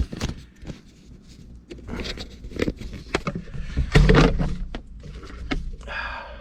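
Hand-work on a car's steering column while removing a turn signal switch: scattered clicks, taps and rattles of parts and tools, with one louder knock about four seconds in.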